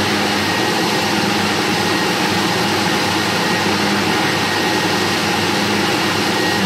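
Countertop blender motor running at a steady speed, blending pancake batter with almonds.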